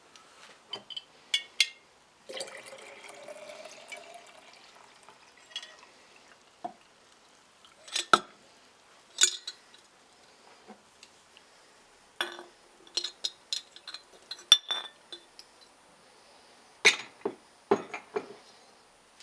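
Scattered clinks and knocks of small hard objects, with liquid poured into a container for about two seconds near the start, its pitch rising as it fills.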